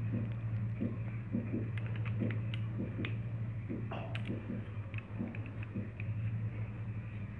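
Light, irregular clicks and scrapes of a threaded steel hammer cap being screwed by hand into a CNC-machined aluminium PCP airgun box chamber, over a steady low hum.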